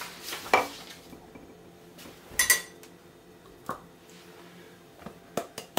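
Kitchenware being handled while flour is measured out: a few separate knocks and clinks, the loudest one with a short metallic ring about two and a half seconds in, and a quick run of knocks near the end.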